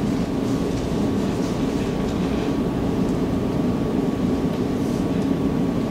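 Steady low rumbling background noise of the room, unchanging throughout, with a faint thin steady tone above it.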